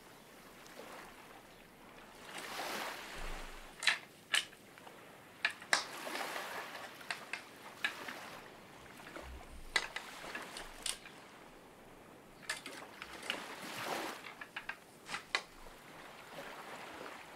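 Water washing and sloshing in slow swells, with many short sharp clicks and knocks scattered through.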